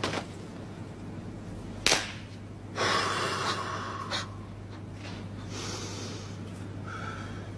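A young man's heavy, drawn-out breathing through the mouth as he strikes a martial-arts pose with palms pressed together: one long loud exhale about three seconds in, a fainter one a little later. A single sharp smack comes just before the first breath.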